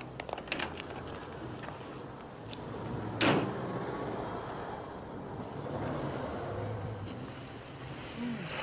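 Taxi engine idling steadily, with a few sharp clicks in the first second and a car door slamming shut about three seconds in.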